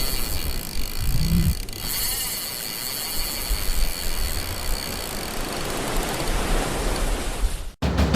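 Steady rushing noise with a low rumble and a faint high whine, cutting off suddenly near the end.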